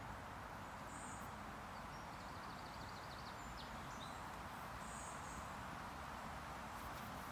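Quiet woodland ambience: a steady hiss with a low rumble, and a few faint, high bird calls, among them a short rapid trill about two seconds in.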